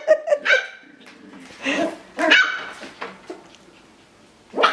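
Coton de Tulear puppies barking in play: short, high-pitched barks, a quick run at the start, two more around two seconds in and a sharp one near the end.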